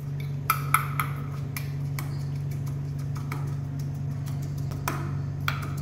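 Steel spoon scraping and clicking irregularly against a small steel bowl, grinding poppy seeds into a paste by hand. A steady low hum runs underneath.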